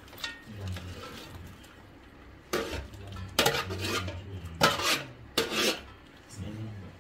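A black plastic ladle scraping and knocking against an aluminium pot lid and pot as meat pieces are scooped from the lid into the broth. There are about four scrapes in the second half, roughly a second apart.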